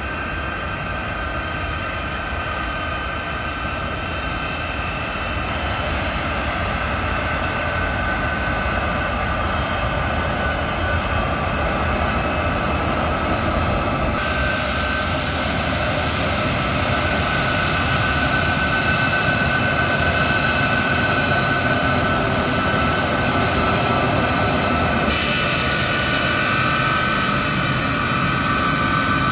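Four turbofan jet engines of a U.S. Air Force C-17 Globemaster III running at taxi power: a steady high whine over a broad rushing hiss, growing louder as the aircraft taxis closer.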